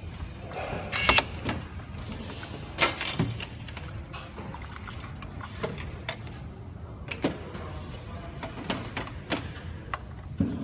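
Scattered light clicks and knocks of plastic parts and wire connectors being handled and plugged in on an opened robot vacuum, the two loudest about one and three seconds in, over a steady low hum.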